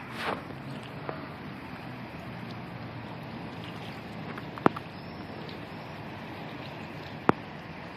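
Steady low rumble of a river boat's engine mixed with wind on the microphone, with a brief rush of noise at the start and a few sharp clicks.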